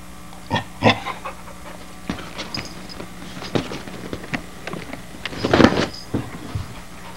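Wheaten Terrier puppy scrambling about on a couch right next to the camcorder: a run of irregular knocks, bumps and scuffs, loudest in a noisy burst about five and a half seconds in.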